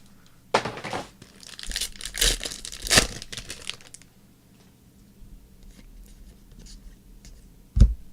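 Trading-card pack wrapper being torn open and crinkled for a few seconds, then lighter handling of the cards, with a dull thump near the end.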